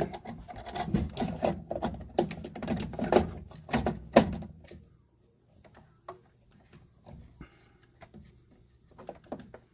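Hand-handled parts of a Snapmaker U1 3D printer being refitted, giving a quick run of clicks and knocks that is loudest about four seconds in, then a few faint ticks.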